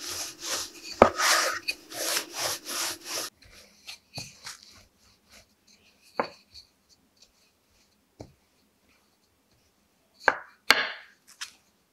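Wooden rolling pin rolling out bread dough on a bamboo cutting board. For about the first three seconds it makes a fast run of rubbing strokes. After that come scattered light knocks of the pin on the wood, with two sharper ones near the end.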